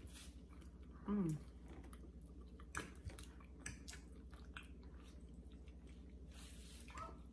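Faint close-up chewing and wet mouth sounds of someone eating chili and cheese-covered food, with scattered small clicks. A short hummed voice sound with falling pitch comes about a second in, over a steady low hum.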